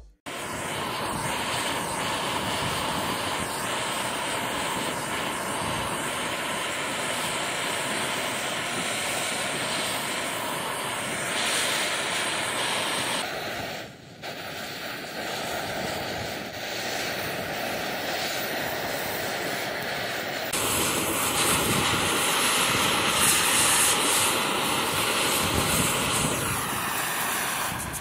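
Handheld butane torch burning with a steady hissing flame as it chars small wooden squares black. It drops out briefly about halfway through and is louder in the last third.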